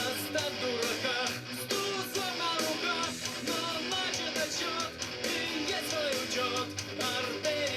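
A rock song with singing and guitar playing through a small portable Bluetooth speaker.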